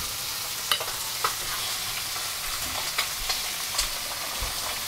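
A few sharp clinks of a metal utensil against a plate and the steel counter as a hot boil-in-bag rice pouch is set down, over a steady hiss.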